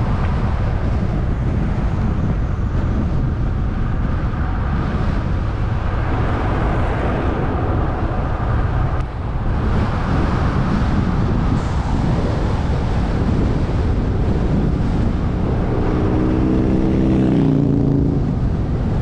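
Steady, heavy wind buffeting on the microphone of a GoPro with no wind screen, riding a bicycle into the airflow. Near the end a humming tone with several pitches rises in for about two seconds.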